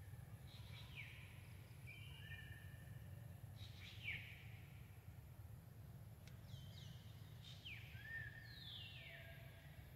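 Faint bird calls: a scattering of whistled notes, several sliding down in pitch, the longest slide near the end, over a low steady background noise.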